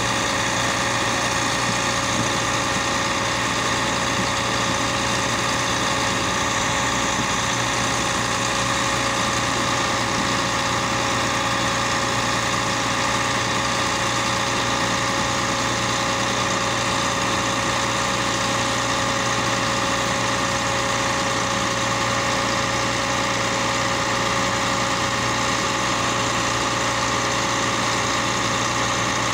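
Orkel MP2000 Compact silage baler-wrapper running steadily: a constant machinery and engine drone with a steady hum, unchanging throughout.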